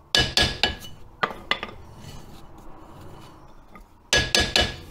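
Hammer tapping a spinning cast-iron rear brake drum on an MGB: quick runs of ringing metallic taps, several at the start, two more about a second in, and another quick run near the end. The taps seat the brake shoes against the adjuster while the brakes are set to just drag.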